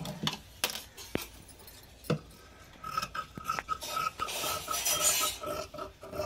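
Large scissors cutting through cloth: a few sharp clicks, then from about three seconds in a rhythmic run of rasping snips, about three a second, with a slight metallic ring from the blades.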